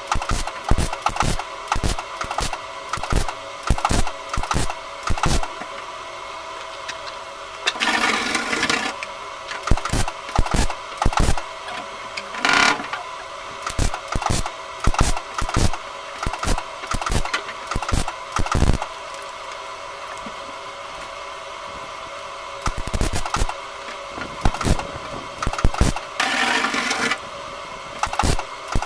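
MIG welder stitch-welding a thin sheet-metal patch into a van door: the arc strikes in short bursts about once a second, with a couple of longer runs and a pause of a few seconds in the middle.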